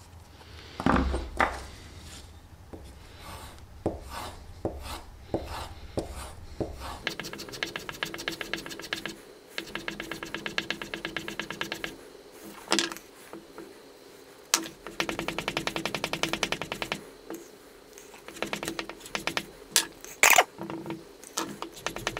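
Steel chisel being honed on a flat strop board loaded with white polishing compound, rubbed back and forth in runs of quick strokes that come as a rapid ticking. In the first few seconds there are handling knocks and clicks, the loudest about a second in.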